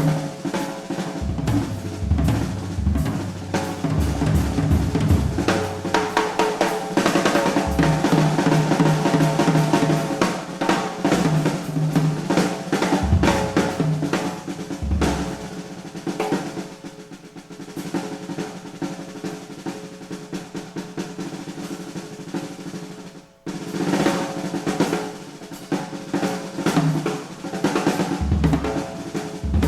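Live jazz piano trio playing, with the drum kit to the fore over piano and double bass, from a cassette recording of an FM radio broadcast. The music drops out suddenly for a moment about 23 seconds in, then carries on.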